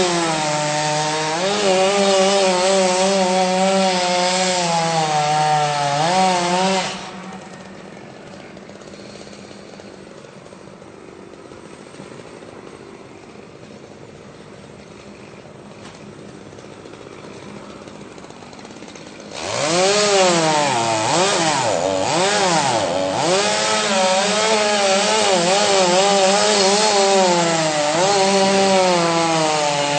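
Chainsaw cutting a tree, engine running hard with its pitch wavering under load. About 7 seconds in it falls away to a much quieter background, and about 19 seconds in it revs back up and cuts again, pitch swinging up and down.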